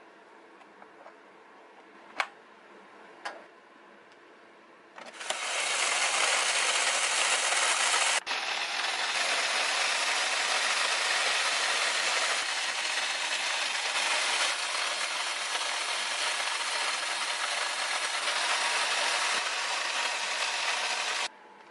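Keenway 21673 toy vacuum cleaner: two clicks, then about five seconds in it switches on and runs with a loud, steady mechanical whirring rattle. It stops for a moment about eight seconds in and then runs on until it cuts off suddenly near the end.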